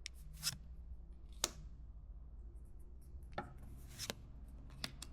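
Pokémon trading cards and pack wrappers being handled: a few soft, sharp clicks and a brief rustle, spread out with gaps between them.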